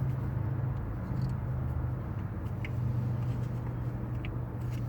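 Steady low engine-like hum that wavers slightly in pitch, with a few faint light clicks.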